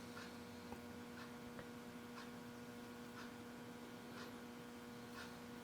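Faint steady electrical hum with soft ticks about once a second.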